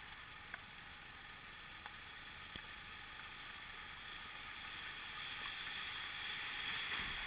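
Rushing river water from whitewater rapids heard from a kayak, a steady hiss that grows louder over the last few seconds, with a few light clicks.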